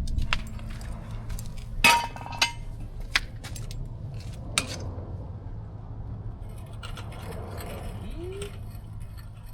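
Scattered sharp metal clicks and clinks of hand tools working a car wheel's lug nuts, the loudest about two seconds in, over a steady low hum.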